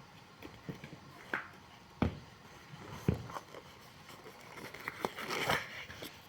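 Handling sounds of work on a shoe at a bench: scattered knocks and taps, the loudest two about two and three seconds in, and a short rustle near the end.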